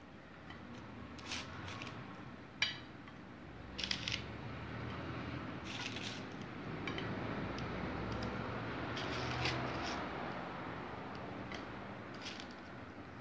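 Light clicks and soft knocks as raw dough rolls are handled and set down on a parchment-lined baking tray and a ceramic plate is moved over it, with a steady low background noise that swells in the middle.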